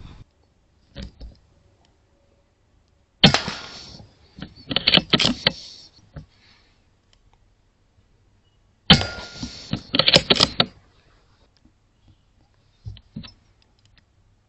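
Two sharp shots from a .22 Airmaks Krait L air rifle, about five and a half seconds apart, each followed by a second or so of clicks and clatter. A few faint ticks come in between.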